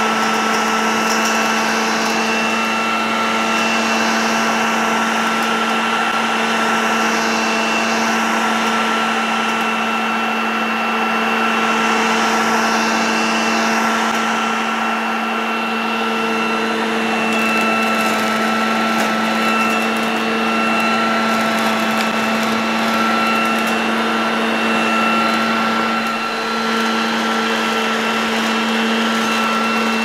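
Garden Gear 1800 W electric push leaf vacuum running steadily in vacuum mode, sucking straw up off artificial grass. Its motor keeps up a steady hum and whine over a dense rush of air.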